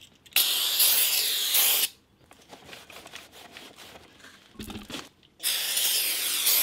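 Aerosol brake cleaner sprayed onto a new brake rotor in two long hissing blasts, the first just after the start and the second near the end. Quieter sounds of the rotor being handled and turned in its cardboard box fill the gap between them.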